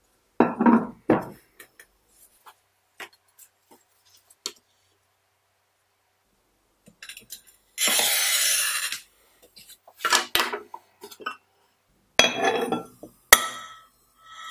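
A thick glass smalti pancake being handled and cut: knocks as it is set down, then a glass cutter's wheel scoring a straight line across it, a steady scratchy hiss about a second long. Later come more handling knocks and a sharp crack as the disc snaps in two along the score.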